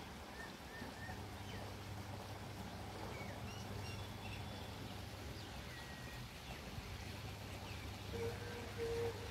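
Outdoor ambience: a steady low hum with scattered faint, short high chirps, and two short low calls near the end, which are the loudest sounds.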